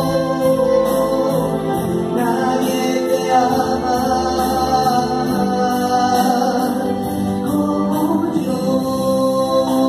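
A woman singing a Catholic meditation hymn into a microphone, accompanied by electronic keyboards with a light steady beat.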